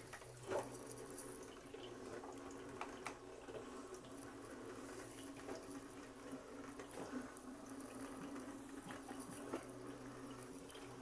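Small drip coffee maker brewing, with faint trickling and dripping water and scattered small ticks over a steady low hum.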